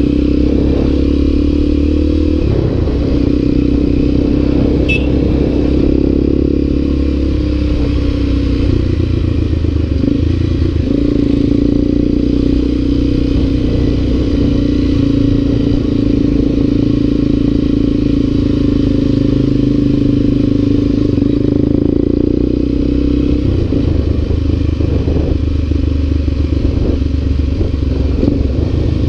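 Motorcycle engine running steadily while being ridden, heard from on the bike, its note dropping and picking up again a few times. A rattle from the tyres and bike running over cobblestone paving runs underneath.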